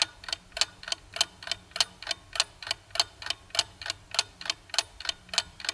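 Ticking clock sound effect, about three even ticks a second, used as a countdown timer while a quiz question waits for an answer.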